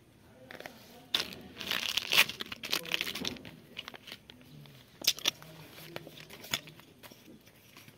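Rustling, crinkling handling noise with sharp clicks, densest from about one to three and a half seconds in, then a few separate clicks.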